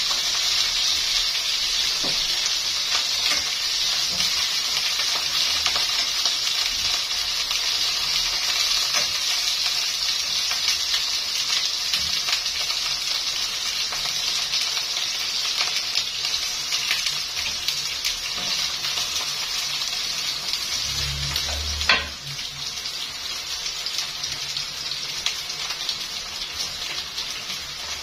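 Potato chips deep-frying in a wok of oil and sausages frying in a pan, a steady sizzle with the odd small clink of a utensil. A sharp knock comes a little over three-quarters of the way through, and the sizzle is a bit quieter after it.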